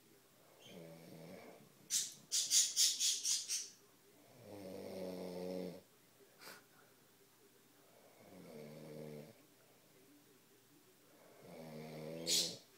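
A man snoring: four drawn-out, droning snores, about one every three to four seconds. Between the first two comes a quick run of about seven sharp, hissy pulses, the loudest sound, and the last snore ends in a short hiss.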